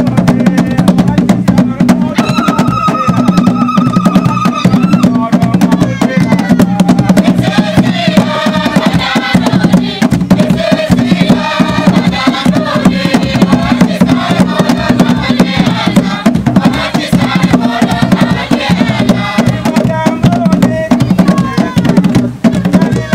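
Tall wooden standing drums beaten by hand in a dense, steady rhythm, with a group of voices singing along.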